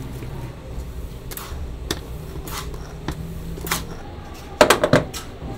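Scattered metallic clicks and knocks over a steady low hum, ending in a quick cluster of loud clatter: chimney-cake spits knocking against the metal rotisserie rack.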